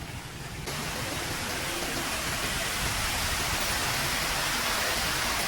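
Loud, steady rushing of water, like heavy rain or falling water. It sets in sharply a little under a second in and swells over the next two seconds.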